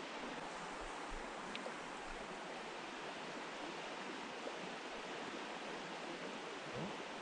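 Steady rush of a trout stream's flowing water, an even wash of noise with no change.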